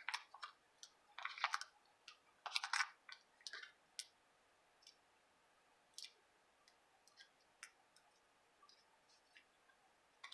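Faint handling sounds of paper crafting: foam adhesive dimensionals being peeled off their backing sheet and pressed onto cardstock. Two short paper rustles come in the first three seconds, followed by scattered light clicks and taps.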